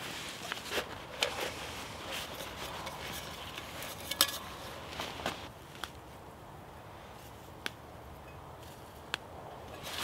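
Close hand-handling noise: rustling with many small sharp clicks for the first six seconds, then quieter, with a few isolated snaps while stinging nettle leaves are picked by hand, and a louder rustle at the end.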